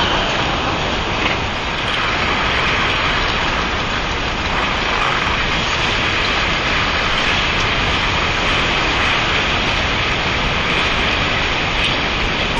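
Steady noise of a news helicopter's engine and rotor, heard through the live aerial feed.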